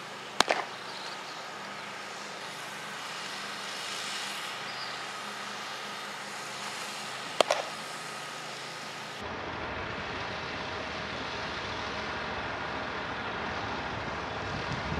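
A thrown baseball smacking into a leather glove twice, once just after a pitch and again about seven seconds later, each a single sharp pop over steady outdoor background noise.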